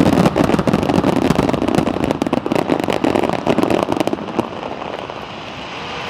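Aerial fireworks in a dense finale barrage: many shells bursting and crackling in rapid succession. The cracks thin out and die away about four seconds in, leaving a steady wash of background noise.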